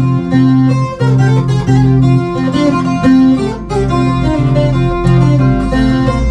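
Two acoustic guitars playing an instrumental duet, a plucked melody over a steady run of bass notes.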